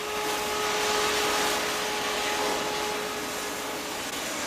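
Gas cutting torch hissing steadily while cutting up a steam locomotive for scrap, with a steady hum under the hiss that drops away about four seconds in.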